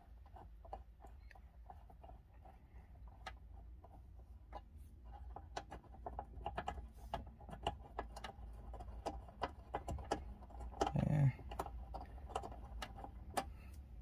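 Hand screwdriver backing a small Phillips screw out of a metal glove box latch: faint, irregular clicks and ticks of the tool and screw, getting busier after the first few seconds.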